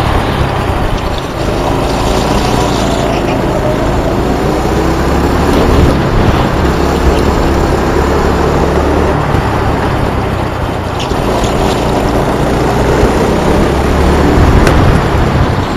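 Go-kart engine heard from onboard, its pitch rising and falling as the kart speeds up and slows through the corners, over a steady rush of noise.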